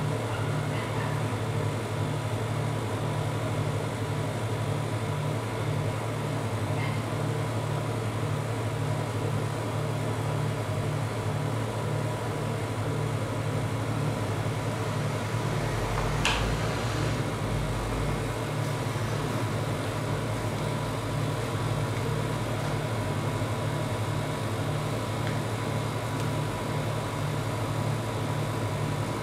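Steady mechanical hum of a refrigeration machine's compressor and fan, with a faint high tone held throughout and one short click about 16 seconds in.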